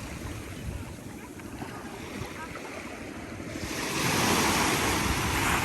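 Ocean surf on the shore: a steady low wash, then a wave breaks and rushes in about three and a half seconds in, louder for the last two seconds.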